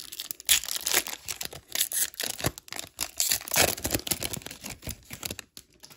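Baseball card pack wrapper crinkling and tearing as it is pulled open by hand: an irregular run of crackles that stops near the end.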